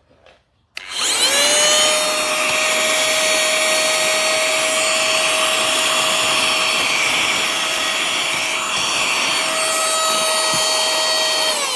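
Nikocreos cordless handheld mini car vacuum switched on about a second in, its small motor spinning up to a steady whine over a rushing hiss of air, a little bit loud. It is switched off near the end and winds down in falling pitch.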